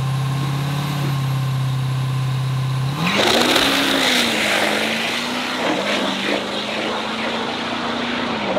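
Diesel drag-racing pickup held at steady revs on the starting line, then launching about three seconds in: the engine sound jumps suddenly and its note climbs and holds high as the truck pulls away at full throttle.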